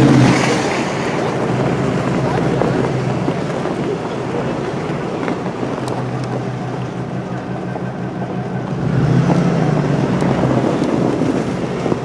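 Truck engine running at a steady low drone while driving on a snowy logging road, with tyre and wind noise. The engine note rises briefly about nine seconds in.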